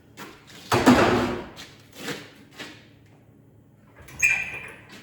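Metal parts being shifted and worked into place. A loud clunk with a rough scrape comes about a second in, then two lighter knocks, and a short high metallic squeak near the end.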